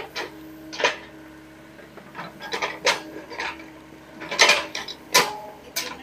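SDLG mini excavator digging: a series of irregular sharp metallic clanks and knocks from the bucket and arm working through soil and stones, over the steady low note of the running engine.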